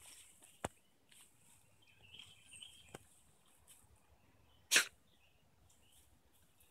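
A dog sneezes once, a short sharp burst about five seconds in, as it sniffs with its nose in the grass.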